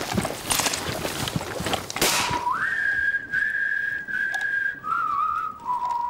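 A dense rustling clatter of soldiers charging through brush, which cuts off about two seconds in. A person then whistles a slow tune of long, clear held notes that rise at first and then step down.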